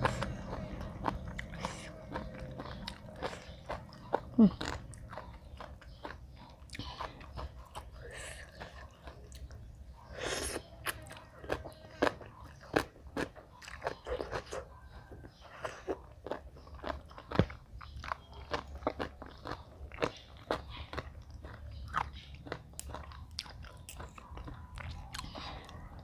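A person eating close to the microphone, chewing and crunching mouthfuls of papaya salad and salmon, with many quick, irregular crunches and wet mouth clicks.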